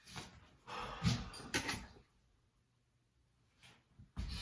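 A few short knocks and scrapes from working and handling a wooden axe handle at the bench, in a cluster over the first two seconds and once more near the end.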